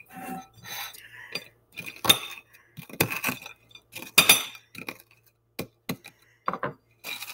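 A knife chopping Oreo cookies on a ceramic plate: irregular knocks and scrapes of the blade against the plate, with short clinks, the sharpest strikes coming two to four seconds in.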